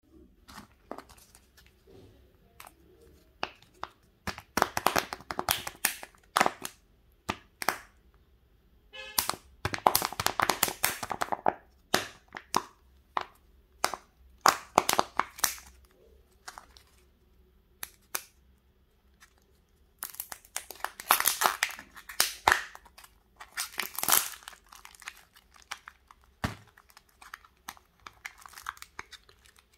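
A plastic candy surprise egg's wrapper and shell being handled and peeled open by hand. Several spells of crinkling and crackling, with sharp clicks and snaps between them.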